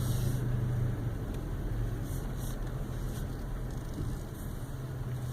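Cab sound of a 2016 Toyota Tacoma TRD Off-Road creeping down a steep hill under crawl control: a steady low engine hum, with faint brief noises from the ABS modulating the brakes at each wheel to hold the descent speed.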